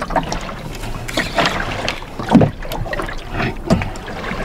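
Small boat on open water: a low steady motor hum with irregular surges of water slapping and splashing against the hull.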